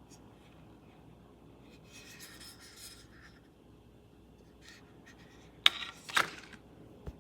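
Faint rubbing, then two sharp scraping clicks about half a second apart and a short low thump near the end.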